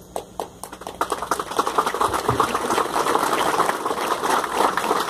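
Audience applauding: a few scattered claps at first, swelling to steady applause about a second in.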